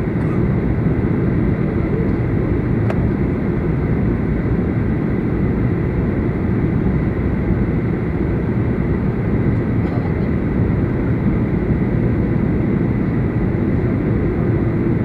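Steady cabin noise inside a Boeing 737-800 on descent: a constant low roar from its CFM56 turbofan engines and the airflow over the fuselage, with a faint high steady tone.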